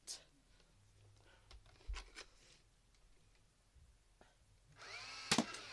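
Nerf blaster being loaded with a few light clicks, then near the end a short whirring rush and a sharp snap as a foam dart is fired.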